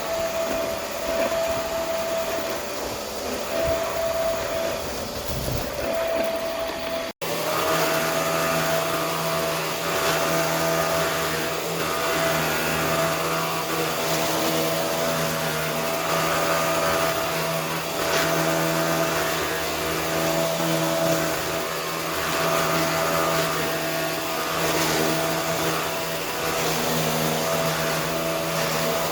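Vacuum cleaner running steadily with a loud motor hum and suction noise. It cuts out for an instant about seven seconds in, then resumes with a slightly different tone.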